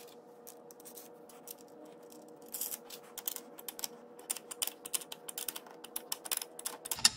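Rapid, irregular light metallic clicking of a wrench working the nuts on a brake booster's mounting studs as they are tightened, sparse at first and busier from about two and a half seconds in. A faint steady hum runs underneath.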